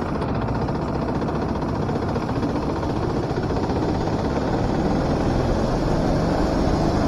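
Four-stroke rental kart engine running steadily, picked up by an onboard camera, a dense noisy rumble growing slightly louder.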